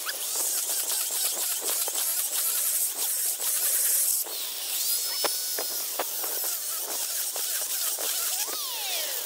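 Angle grinder with a core bit boring into a concrete and brick floor: a steady high-pitched grinding hiss with many small clicks of grit, and a few whining tones that slide up or down in pitch as the bit is loaded.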